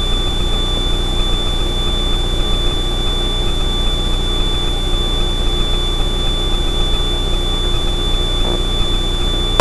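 Extra 300L's six-cylinder Lycoming engine and propeller droning steadily in flight, heard inside the cockpit, with a thin steady high whine over it.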